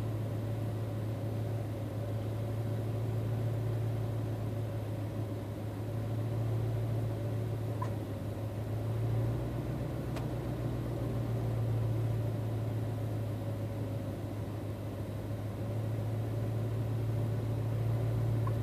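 Truck engine idling, heard from inside the cab as a steady low hum that swells and eases slightly.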